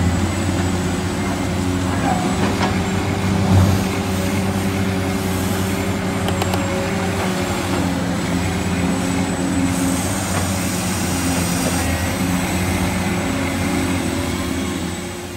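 Huina 1594 remote-control excavator's electric drive motors running with a steady hum as the arm and bucket dig soil. The pitch rises and falls several times as the joints move, and there is one louder knock about three and a half seconds in.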